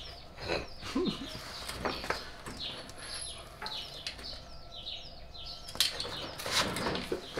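Small birds chirping repeatedly in short falling notes, with a few sharp knocks and clanks, the loudest about six to seven seconds in.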